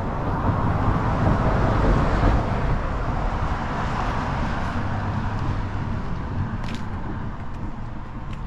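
Outdoor road-traffic rumble, a vehicle passing by, swelling about two seconds in and then slowly fading.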